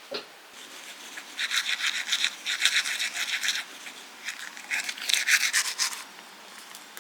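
Rapid back-and-forth brushing or scrubbing strokes close to the microphone, in two bouts of a couple of seconds each.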